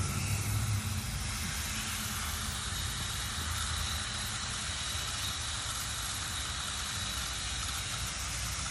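Water spraying steadily from a pistol-grip garden hose nozzle onto wood-chip mulch at the base of a plant: an even hiss.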